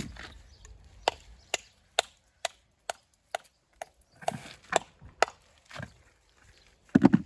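Hammer striking stone in a steady rhythm, about two sharp blows a second, as stone is trimmed for a dry-stone wall. The blows stop about six seconds in, and a louder rough scraping clatter of stone follows near the end.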